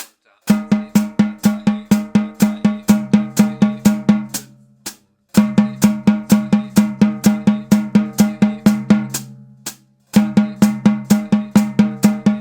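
Snare drum played with sticks in a steady double stroke roll. Each run of even sixteenth-note strokes lasts about a bar and is followed by a short pause before the roll starts again, three times in all.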